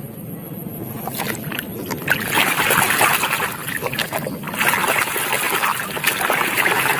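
Muddy water splashing and sloshing as a plastic toy bus is swished back and forth in a shallow stream to wash off the mud, starting about two seconds in and going on unevenly with many small splashes.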